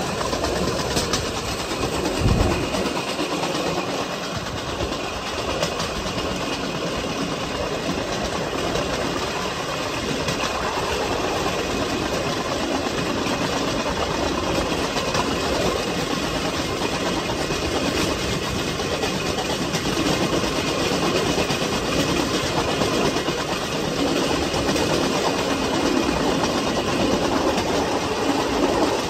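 Rail bike's steel wheels rolling along old railway track: a steady rolling noise, with a single louder knock about two seconds in.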